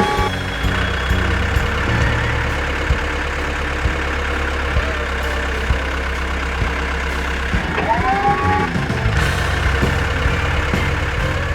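Truck engine running steadily, with a short rising tone about eight seconds in.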